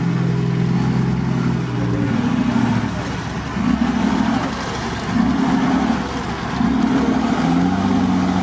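Nissan Patrol engine working under load as the SUV is driven forward through deep mud, then revving in three short surges in the second half.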